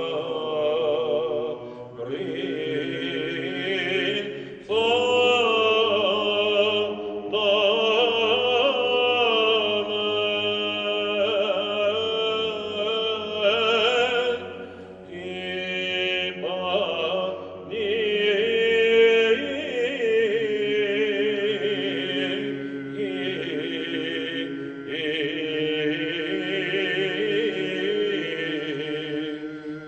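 Men's ensemble singing Byzantine chant: a melody moving in long phrases over a steady low held note, the ison drone, with short breaks between phrases.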